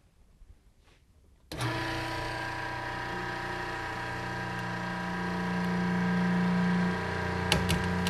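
Hydraulic pump of a belt tear-testing machine starting up about a second and a half in and running with a steady hum that grows a little louder as its cylinder pulls a DiamondTough triple-weave baler belt apart. Near the end comes a run of sharp cracks as the belt begins to tear under the rising force.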